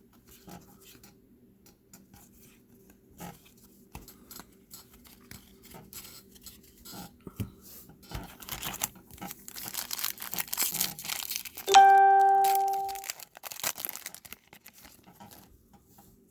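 Trading-card pack wrapper being torn open and crinkled by hand among light card-handling rustles, followed by a single bell-like ding, the loudest sound, that fades out over about a second and a half.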